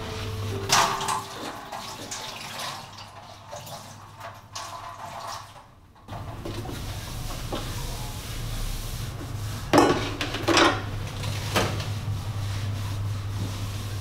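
Kitchen tap water running into a sink while dishes are washed by hand, with clinks and clatters of dishes and pots, a few sharp ones about ten to eleven seconds in.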